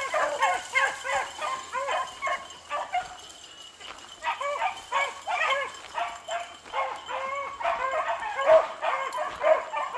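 A pack of beagles baying as they run a rabbit's scent trail, many voices overlapping in a rapid chorus. The baying dips briefly about three seconds in, then picks up again.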